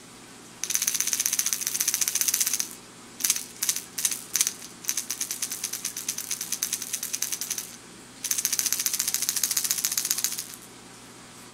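Evergreen Wake Magic minnow lure shaken by hand, its brass and steel rattle balls clicking rapidly inside the body. A run of about two seconds of fast rattling is followed by a few separate short shakes, then steady rhythmic rattling, then another long run of fast rattling. A faint low hum continues underneath.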